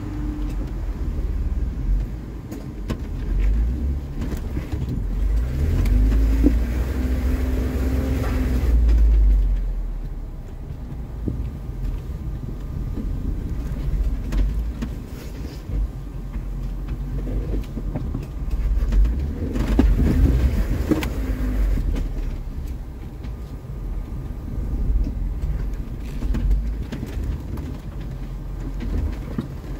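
Jeep Wrangler running off-road, heard from inside the cab: a low engine and drivetrain rumble. The engine note rises twice, about a third of the way in and again just past the middle, with occasional knocks as the Jeep crosses rough ground.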